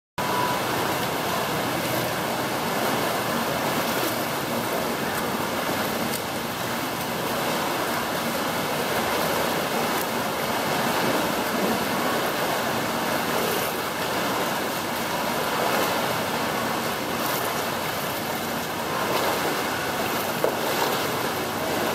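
Steady wash of water noise in an indoor swimming pool: water splashing and churning from swimmers in the lanes, over the pool hall's background din.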